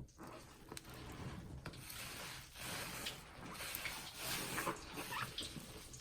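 Soapy sponge being squeezed and worked by hand, its foamy lather fizzing and crackling, loudest in the middle stretch.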